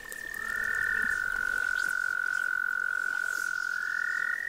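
Two frogs giving long, steady trills at two different pitches. The higher one stops about a second in and starts again near the end, while the lower one holds through the middle.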